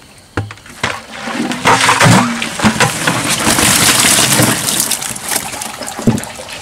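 Water pouring and splashing in a loud rush, building about a second and a half in and easing off near the end, after a couple of knocks.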